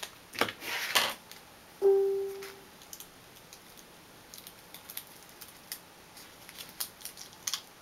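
A plastic card rubbing over drywall-mesh transfer tape in a few short scratchy strokes, then a single short chime-like tone about two seconds in that fades within a second. After it come faint crackles and ticks as the paper backing is peeled off the vinyl lettering.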